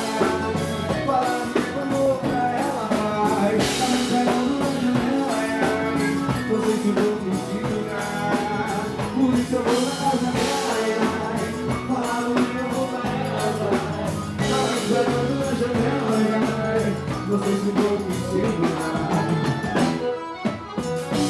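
Live forró music led by an accordion, with a steady drum beat under running melody lines. Near the end the band drops out briefly.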